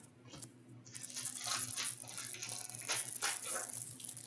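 Trading cards rustling and sliding against each other as a stack is flipped through by hand: a dry rustle with small clicks that starts about a second in.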